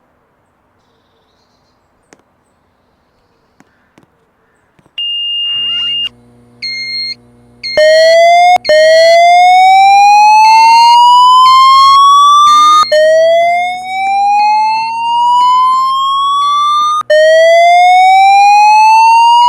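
Near silence with a few faint clicks, then about five seconds in a fire alarm speaker comes on with a brief steady high beep over a low hum. From about eight seconds it sounds a loud slow-whoop evacuation tone, rising sweeps repeating about every four seconds, with a higher tone beeping on and off alongside.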